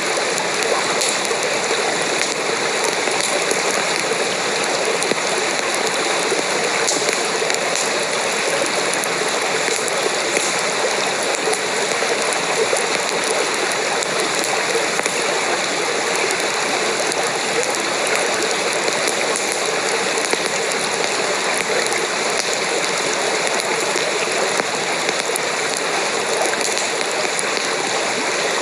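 Steady rushing water, even and unbroken, with a few faint light ticks here and there.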